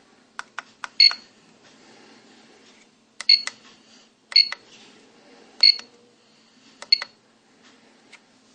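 Sharp clicks, most of them joined by a short high electronic beep, about once a second, as from the buttons and piezo buzzer of a microcontroller alarm clock circuit. Three quick bare clicks come first, then five click-and-beep pairs, over a faint steady low hum.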